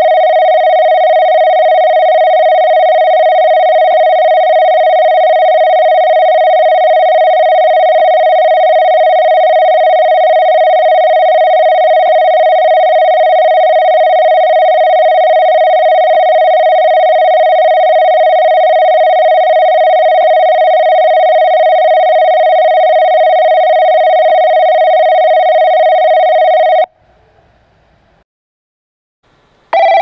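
JR Kyushu JACROS-type platform approach bell (tone B), an electronic bell ringing steadily on one pitch for about 27 seconds and then cutting off: the signal that a train is approaching the platform. Near the end a second approach bell (tone C) starts on a slightly higher pitch.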